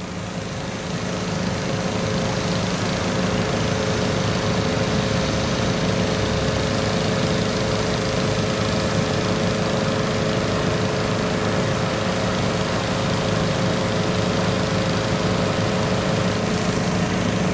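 Fire truck engines running steadily: a constant engine hum with a steady tone over it, a little quieter for the first second or two.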